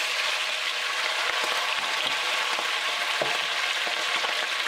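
Pieces of boiled meat frying in hot oil in an enamelled pot: a steady sizzle, with a few faint knocks.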